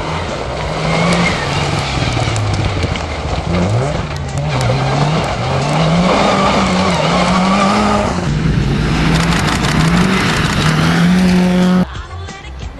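Rally car engine at full throttle, its pitch rising and dropping again and again as it runs through the gears. It cuts off suddenly about a second before the end.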